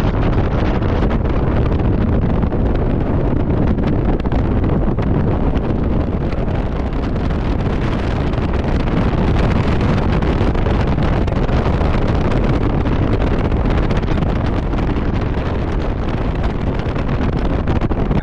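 Steady wind buffeting the microphone, an even low rumbling noise with no change in level.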